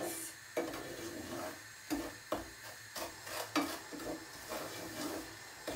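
Wooden spoon stirring and scraping semolina browning in butter in a cooking pot, in irregular rough strokes.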